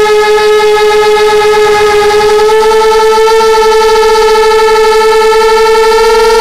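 Quadcopter motors and propellers whining at a steady high pitch, picked up by the camera on board the drone. The pitch creeps slightly higher from about two and a half seconds in as the motors speed up.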